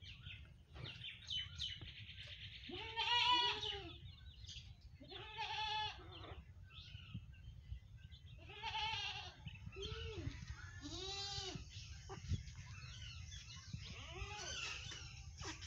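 Repeated farmyard animal calls, about seven of them, each a short rising-then-falling cry under a second long, over a steady low rumble.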